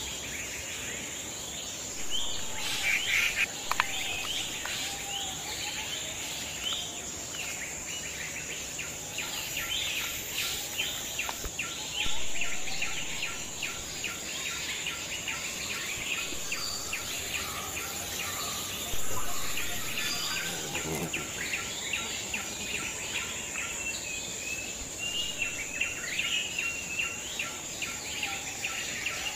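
Insects droning in a steady high tone, with many short bird chirps over it and a few louder bumps from handling.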